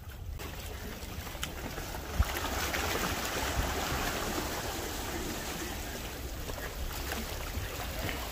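Sea water washing and splashing against jetty boulders, a steady rushing noise that grows louder about two seconds in, with a single knock at that moment. A low rumble of wind on the microphone runs underneath.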